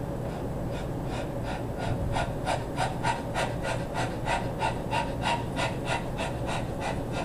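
A man panting hard and fast, about three breaths a second, under the strain of a hard leg-press set near muscular failure. The panting starts about a second in and keeps up.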